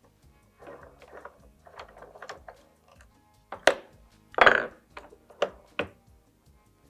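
Metal clattering and knocking as a barrel vise is loosened and steel tools are handled and set down on a wooden workbench. Light rattling in the first half, then four sharp knocks, the loudest about four and a half seconds in with a brief ring.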